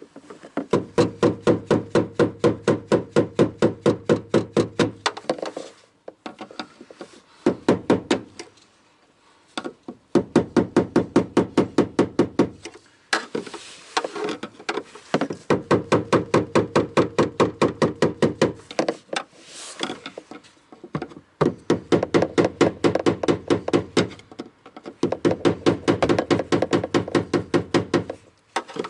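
Small hammer tapping rapidly on a flathead screwdriver to drive round a tight fuel pump retaining ring, several taps a second, in runs of a few seconds broken by short pauses.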